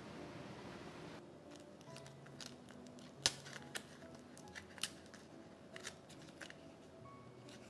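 A handful of sharp clicks or snips, the loudest a little over three seconds in, over quiet background music.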